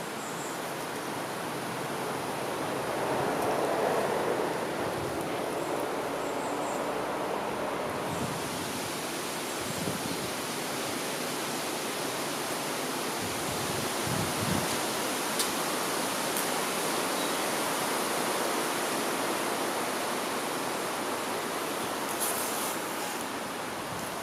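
Wind rushing through the leaves of a tree canopy, a steady rustling hiss that swells in a gust about four seconds in.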